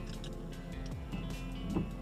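Background music with steady held tones and a few low sliding notes.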